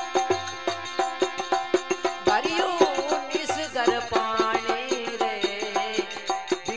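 Instrumental interlude of a Rajasthani devotional bhajan: a dholak keeps a steady, even rhythm of strokes. About two seconds in, a wavering, sliding melody instrument comes in over it.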